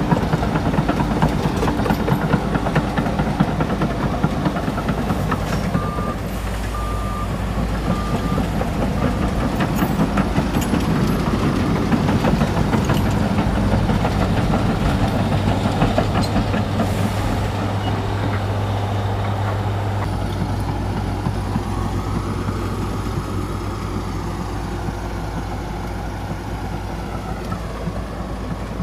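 Komatsu D61EX bulldozer's diesel engine running steadily under load, with clanking throughout. A reversing alarm beeps a few times, about six seconds in.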